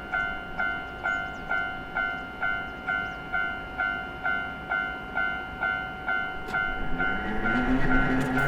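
Japanese level-crossing warning bell ringing in a steady electronic ding-ding at about two strikes a second. From about seven seconds in, an approaching train's running noise and low motor hum rise up under the bell and grow louder.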